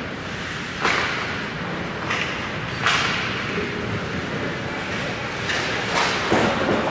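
Ice hockey play close to the goal: skate blades scraping and cutting the ice, with a few sharp scrapes and knocks of sticks and puck about one, three and six seconds in, over the steady noise of the rink.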